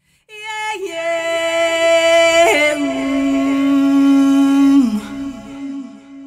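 A solo female voice singing long held notes that step down in pitch several times, the last note fading away.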